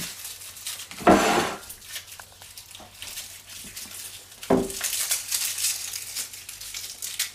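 Garlic bulbs being broken apart by hand: two loud crunches, about a second in and again about four and a half seconds in, with the dry papery skins crackling in between.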